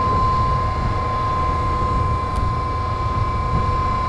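Hydraulics of a Putzmeister MX 36-40Z concrete placing boom working as its boom sections fold in together: a steady high whine over a low rumble.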